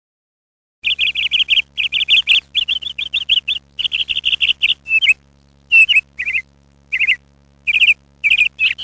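A small bird chirping in quick trilled runs, then in separate chirps with short gaps from about five seconds in. It starts abruptly after a brief silence, with a faint hum underneath.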